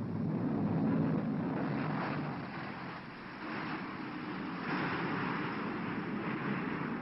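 Jet engines of a Tupolev Tu-144 supersonic airliner running on a low landing approach over the runway: a steady rushing jet noise, loudest about a second in and getting hissier around five seconds in.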